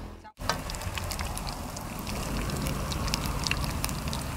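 Pieces of catfish and snakehead frying in hot oil in a pan, the oil sizzling with many small crackles and pops. It starts after a brief dropout about a third of a second in.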